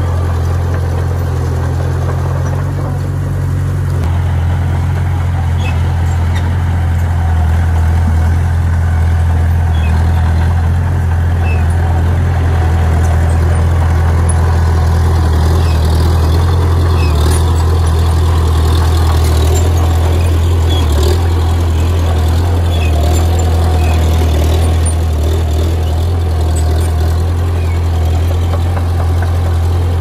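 Heavy diesel engine running steadily at low revs, with a few light clicks around the middle.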